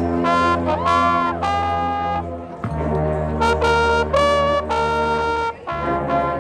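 High school marching band playing, led by trombones and trumpets: held brass chords in short phrases over a steady low bass line, with a brief break before the next phrase about halfway through and again near the end.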